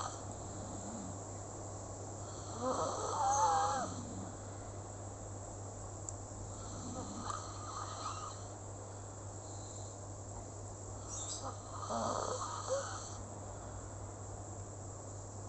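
Slow, steady snoring: three drawn-out snores about four to five seconds apart, the loudest, about three seconds in, with a wavering whistle in it, over a steady low hum.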